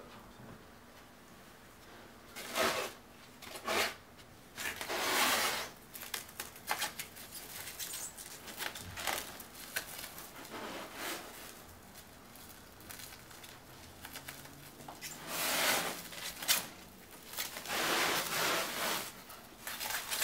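Clear plastic stretch wrap being pulled off a hand roll and wound around a blanket-padded mirror, in irregular noisy bursts of a second or two with quieter gaps between.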